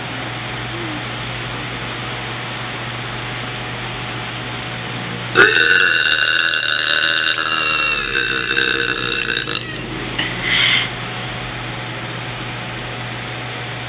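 A young woman's long, drawn-out burp lasting about four seconds, starting about five seconds in, brought up from carbonated cola. It is followed a moment later by a brief, shorter sound.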